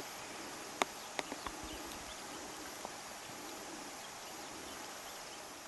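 Outdoor bush ambience: insects chirring in a faint high pulsing tone, with four sharp clicks or snaps in the first three seconds.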